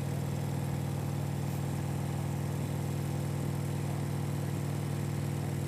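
Harley-Davidson touring motorcycle's V-twin engine running at a steady cruising speed, an even low drone with faint road and wind noise.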